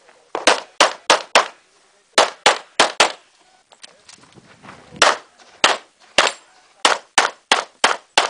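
Pistol fired rapidly in a USPSA course of fire: about sixteen sharp shots in quick strings of three to five, each shot about a third of a second apart. There is a pause of about two seconds near the middle while the shooter moves between positions.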